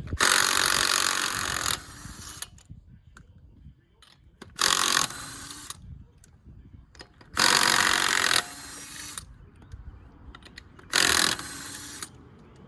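Impact wrench run in four short bursts, the first and longest about a second and a half, loosening the lug nuts to take the wheel off.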